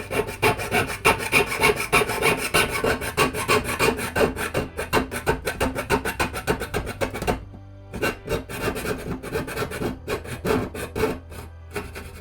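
Jeweler's saw cutting through 14-gauge brass sheet in rapid back-and-forth strokes, several a second. It pauses briefly about seven seconds in, then saws on.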